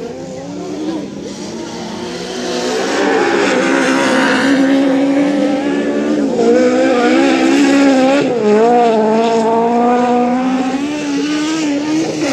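Lowered VW Beetle autocross car's engine running hard on a dirt track, its pitch rising and dipping as the throttle is worked. It grows louder after about two seconds.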